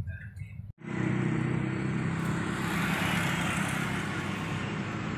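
Truck engine running and road noise heard from inside the moving cab; about a second in, an edit cut breaks the sound off for an instant and it comes back louder, with more road and wind noise over the steady engine hum.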